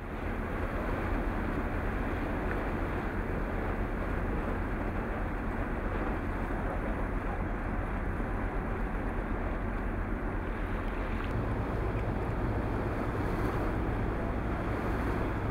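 A sportfishing boat's engine running steadily with a low hum, under wind buffeting the microphone and the rush of water; the hum shifts slightly about eleven seconds in.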